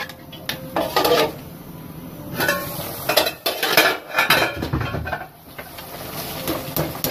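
Irregular clatter and knocks of aluminium pots and a plastic sieve being handled while washed stockfish is strained and tipped into the pot.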